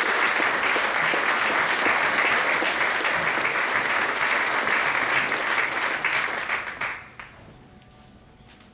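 An audience clapping steadily, dying away quickly near the end.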